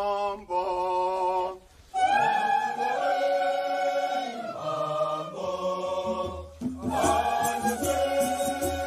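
A male leader sings a short solo line in Shona and an unaccompanied mixed church choir answers in full harmony. Hand rattles start a steady shaking near the end.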